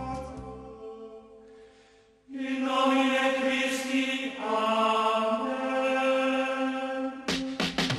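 Background music: a guitar piece fades out, and after a brief pause a sustained choir-like chant with held notes plays. Near the end an electronic track with a drum beat starts.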